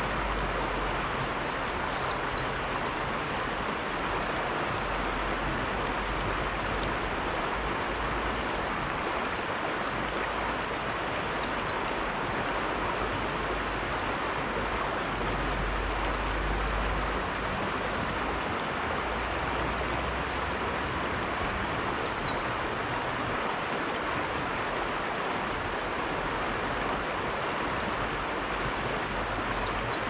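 River water running over rocks in a steady, even rush. A short, faint, high-pitched phrase of quick notes recurs four times, roughly every nine seconds.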